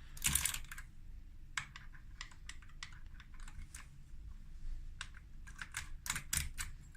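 Metal key being worked in a night latch's rim cylinder: a run of small, irregular clicks as the pin tumblers ride up and down over the key's cuts, with a denser cluster of clicks near the start and again near the end.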